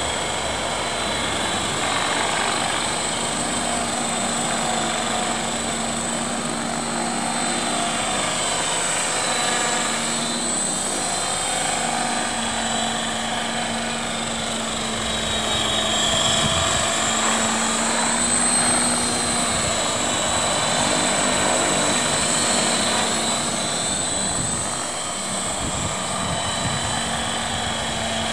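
CopterX 500 SE electric RC helicopter in flight: a steady whine of motor and spinning rotors, its pitch shifting now and then as it manoeuvres.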